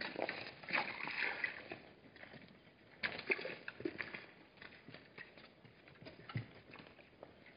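Hartmann's mountain zebras' hooves scuffing and knocking on stony ground: irregular clicks and scrapes, busiest near the start and again about three seconds in.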